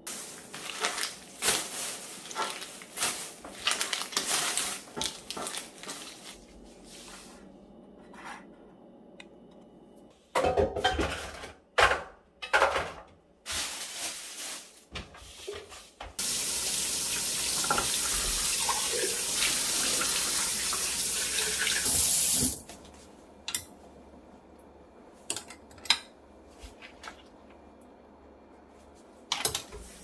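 Plastic bag crinkling and rustling, then a few knocks of plastic containers, then a kitchen tap running steadily into a stainless-steel sink for about six seconds before it is shut off suddenly.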